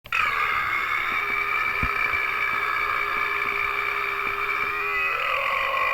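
One long, drawn-out burp, held steady and dropping lower about five seconds in.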